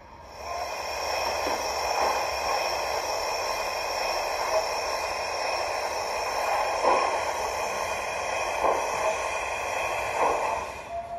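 Zimo MX644C sound decoder in an O gauge GWR 45XX Prairie tank model, playing a Prairie steam sound file through the model's own speaker: a steady steam hiss, with a few soft puffs now and then.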